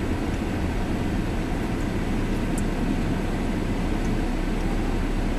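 Steady car engine and road noise heard from inside the cabin, a low even rumble.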